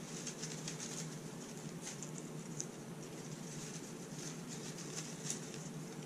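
Cut-up paper slips rustling and crinkling inside a knit beanie as a hand rummages through them. The crackles are light and irregular, over a steady low hum.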